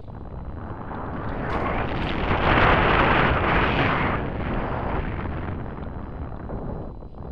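Wind rushing over the microphone of a camera on a mountain bike riding a dirt trail, with a low rumble under it. The rush swells to its loudest about two to four seconds in, then eases off.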